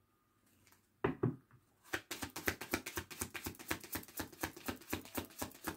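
Tarot deck being shuffled by hand: a soft card tap or two about a second in, then from about two seconds in a fast, even run of card flicks, many a second.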